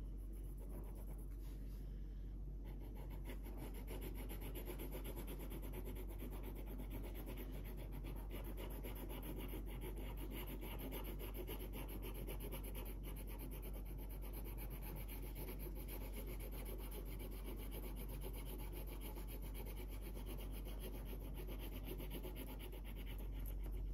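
Felt-tip marker scribbling rapidly back and forth on paper, colouring in a drawing. The strokes become a steady, dense rubbing about three seconds in.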